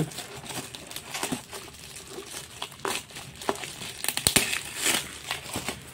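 Metallic foil gift wrap crinkling and crackling in irregular bursts as hands pull it open, with a few sharper crackles about four seconds in.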